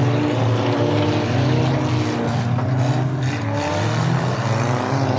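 Stock cars' engines revving hard, several at once, their pitches rising and falling as they run around the track.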